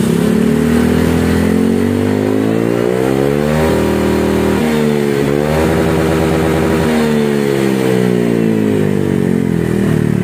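Honda Vario 160 scooter's single-cylinder engine revving through an SKR aftermarket racing muffler, with the rear wheel spinning on the stand. The revs climb for about four seconds, dip and climb again, then wind down slowly over the last few seconds. The muffler is tuned for a smooth note that does not blare at the top.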